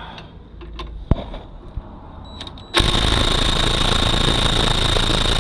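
Impact wrench hammering steadily on a 17 mm brake bolt, starting a little under three seconds in after a sharp click about a second in. The bolt does not break loose under the impact.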